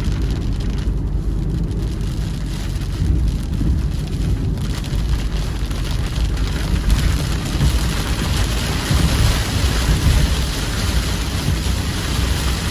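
Heavy rain pouring down with a steady low rumble under it. The hiss of the rain grows markedly heavier about four to five seconds in, as in a sudden local squall.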